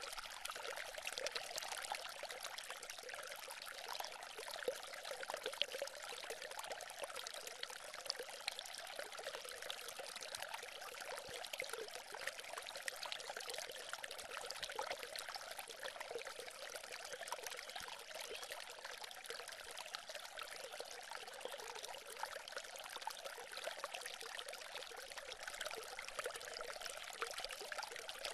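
Small fountain of water running steadily down a stone sculpture into the pebbles at its base, a continuous trickling with no bass.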